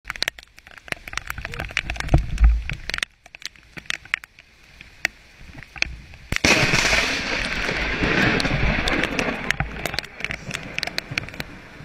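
A close lightning strike: a sudden loud crack about six seconds in, followed by several seconds of loud crackling noise. Before it there are scattered small clicks and low buffeting on the microphone.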